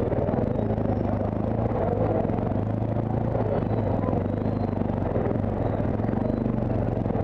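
Motorcycle engine running steadily at low speed in slow, congested traffic: a constant low drone, mixed with the noise of surrounding motorcycles and vehicles.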